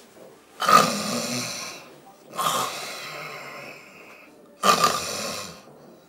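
A man snoring through his open mouth: three loud snores, each one to two seconds long, with short pauses between them.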